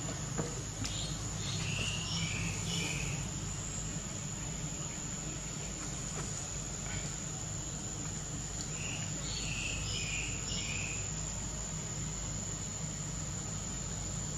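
Insects trilling steadily, a thin, high, unbroken tone, over a low hum. Two short flurries of high chirps come about two seconds in and again around ten seconds in.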